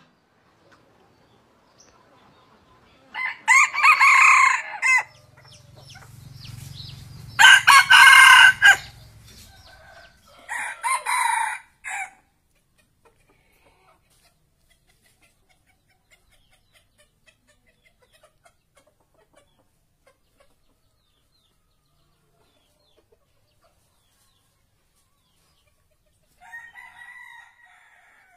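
Red junglefowl rooster crowing: three loud crows a few seconds apart, then a fainter call near the end.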